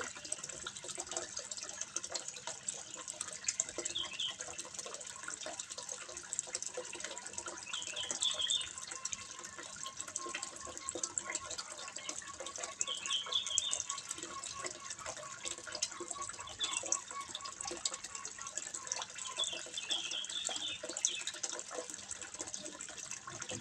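Water trickling and splashing steadily into a fish pond, with short high chirps every few seconds.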